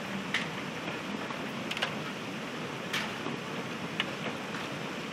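Hailstorm with heavy rain: a steady rush of downpour with scattered sharp clicks of hailstones striking close by, about one a second.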